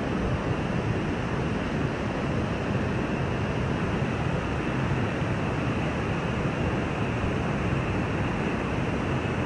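Steady rushing water, an even noise that holds at one level without pauses or swells.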